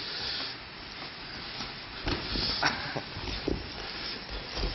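Boxing sparring on a padded ring mat: several dull thuds of gloved punches and bare feet through the second half, with short grunts from the fighters.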